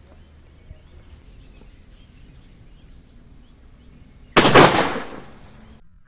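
A single shot from a 12-bore single-barrel shotgun with a 32-inch barrel, firing a No. 4 bird-shot cartridge, about four seconds in; the report is sudden and loud and trails off over about a second.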